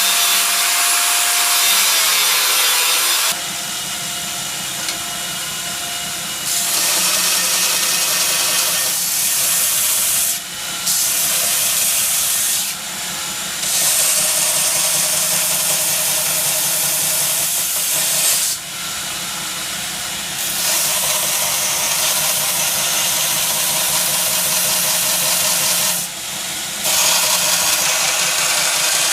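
Power grinder working steel: a loud abrasive hiss over a steady motor hum, in short segments that switch abruptly between louder and quieter every few seconds.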